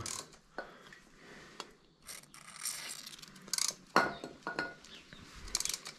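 Faint scattered metallic clicks and short scrapes from a hand tap being turned into a stripped bolt hole in an aluminium cylinder head, cutting a new 8 mm thread. It turns easily, as the first tap does in the soft metal.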